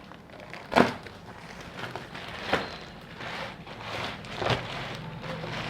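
Cardboard box and packaging handled by hand while unboxing: rustling and crackling, with three sharp knocks about one, two and a half, and four and a half seconds in.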